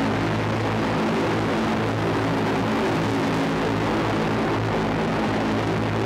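An electronic composition made from a river's flow: a steady rushing water noise over a low held drone of several sustained tones. The drone is a resonant note drawn from the river recording and pitched far down.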